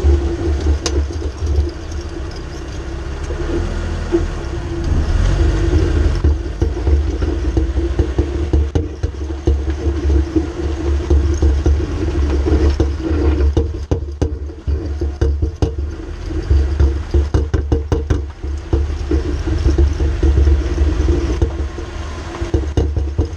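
Mercedes ML350 under way: a heavy drivetrain and road rumble with a steady, wavering hum from a driveshaft whose carrier bearing has gone bad, and a cluster of sharp clicks or knocks about halfway through.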